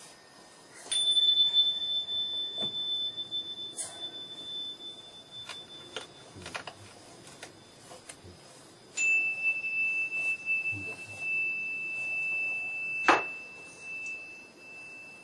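Two long, pure ringing tones: a high one starts about a second in and fades away over about five seconds, then a slightly lower one starts about nine seconds in and holds steady. Scattered light knocks sound under them, with one sharp click about thirteen seconds in.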